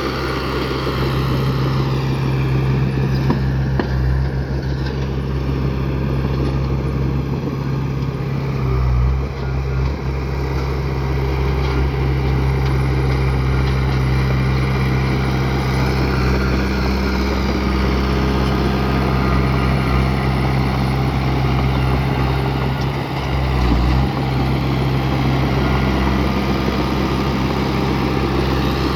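Bulldozer's diesel engine running steadily, with its pitch briefly shifting twice, about nine seconds in and again near the end of the third quarter.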